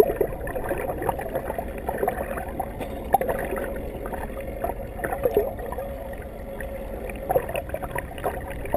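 Underwater sound heard through a camera's waterproof housing: muffled rushing and gurgling water with many small crackles and pops against the housing, over a steady hum.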